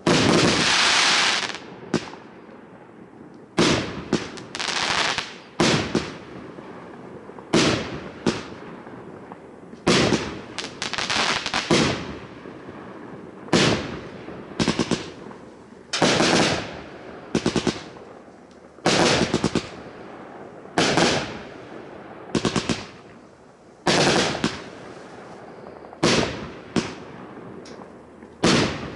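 A 100-shot, 25 mm consumer fireworks compound battery firing. Loud shots and bursts come every second or two, some singly and some in quick runs of several, each fading away before the next.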